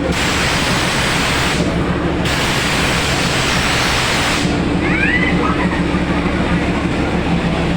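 Darjeeling Himalayan Railway toy-train steam locomotive standing and hissing steam, a loud steady hiss over a low hum; the hiss dips briefly about two seconds in and eases about four and a half seconds in.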